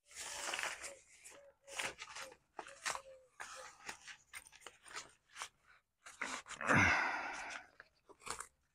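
Fabric roof of a vehicle shower enclosure rustling and crinkling as it is pulled over and fastened with Velcro, in irregular scrapes and swishes, with a longer, louder rustle about seven seconds in.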